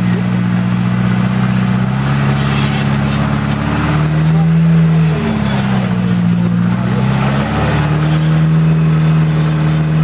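Rock-crawler buggy's engine working under load as it crawls up a rock ledge, its revs stepping up and down a few times.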